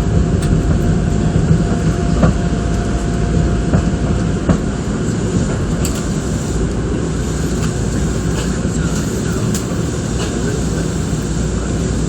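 Nankai Koya Line electric train heard from behind the cab while running slowly: a steady low rumble and hum with scattered sharp clicks, and a thin steady whine for the first few seconds.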